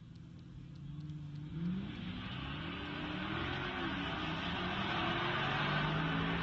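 Two cars at full-throttle acceleration in a drag race, a stock sixth-gen car and a Procharger-supercharged 302 V8 Fox-body Mustang. The engine notes climb and drop back with gear changes, getting steadily louder as the cars come toward the listener.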